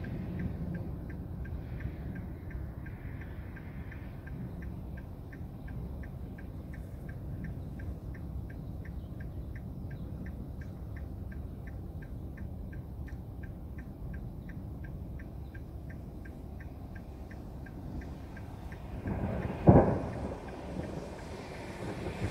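Steady road and tyre noise inside a moving car's cabin on a wet road, with a light regular ticking about three times a second. Near the end, a short loud rumble with a sharp peak: thunder from the storm.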